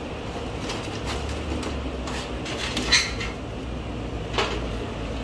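Sheet-metal shroud of a PTAC air-conditioner unit being lifted and shifted by hand: a series of clanks and scrapes of the metal panels, the loudest about three seconds in, over a steady low hum.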